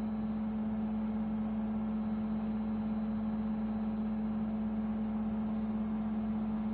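Midea front-loading washing machine running with a steady, even hum.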